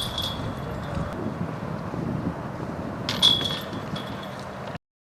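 Discs striking a metal disc golf chain basket: a ringing metallic clink at the very start and another about three seconds in, over a steady background hiss. The sound cuts out suddenly near the end.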